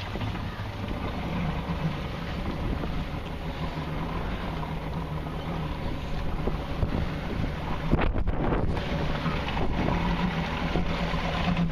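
A RIB's outboard motor running steadily, with wind buffeting the microphone.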